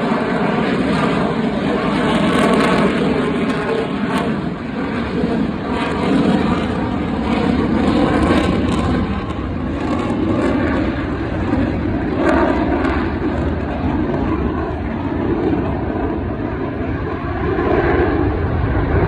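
Jet noise from an F-22 Raptor's twin Pratt & Whitney F119 turbofans during a slow-speed pass: a loud, continuous rumble that swells and eases every few seconds.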